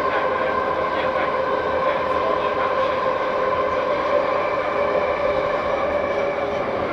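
A Vagonmash 81-series metro car running through a tunnel, heard from inside the car: a steady whine from the DK-117 traction motors and gearing over a continuous rumble of wheels and tunnel noise. The pitch of the whine sinks slightly near the end.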